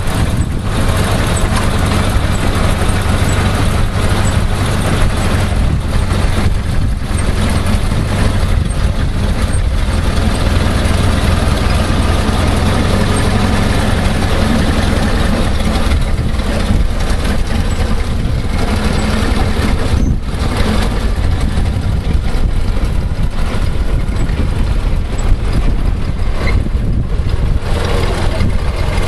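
Clockwork spring motor of a wind-up toy truck running, a steady whirring hum with no breaks.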